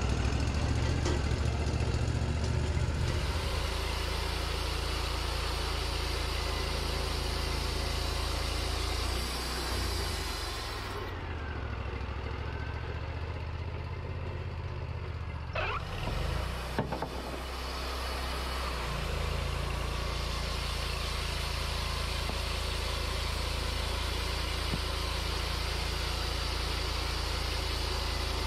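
Engine of a Wood-Mizer portable band sawmill running steadily as the band blade cuts through a log. Partway through, the note dips and wavers for a few seconds with a couple of sharp clicks, then settles back to a steady run.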